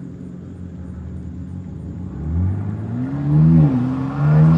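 Car engine with a new aftermarket exhaust accelerating hard: a steady drone for about two seconds, then the revs climb, drop at a gear change, and climb again.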